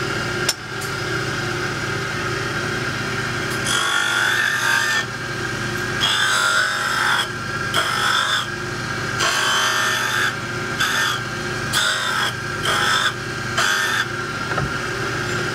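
Sunnen cap grinder motor running steadily, with a series of short grinding passes, about eight, starting about four seconds in. A main bearing cap's face is being ground down a couple of thousandths to remove warpage on one corner and shrink the main bearing housing bore.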